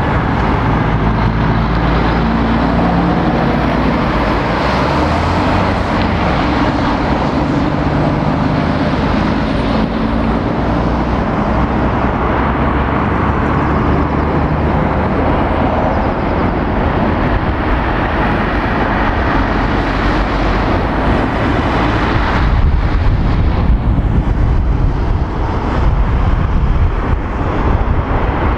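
Road traffic: diesel lorries and cars going round and pulling away, a steady mix of engine and tyre noise. A lorry's engine note is plainest in the first few seconds, and a deeper rumble builds near the end.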